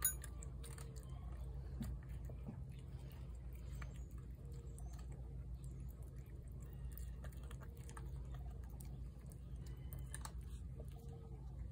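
A cat eating chunky wet food from a plate: a run of small, irregular wet chewing and lapping clicks, with one sharp click right at the start.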